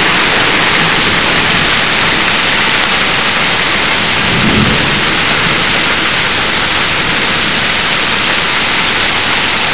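Hail and heavy rain pelting down, a dense steady hiss of countless impacts, with a brief low rumble about halfway through.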